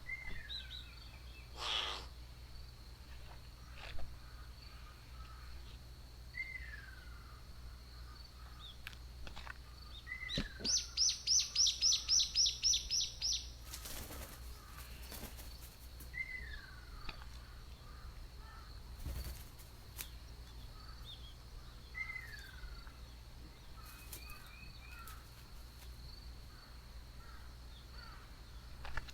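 Outdoor birdsong: a short falling whistle repeats about every six seconds, and a loud, fast run of about a dozen high notes comes a little over ten seconds in. A faint steady high tone sits underneath throughout.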